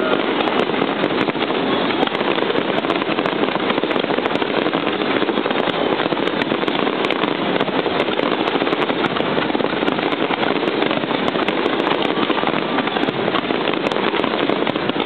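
Aerial fireworks going off in a dense, unbroken barrage of bursts and crackling, steady in loudness throughout.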